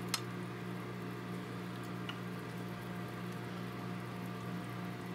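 Steady low hum with a faint hiss over it, and a light click just after the start.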